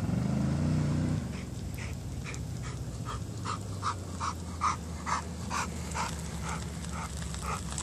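A dog barking over and over, short barks about two or three a second. Under it runs a low steady engine hum, which rises in pitch briefly at the start.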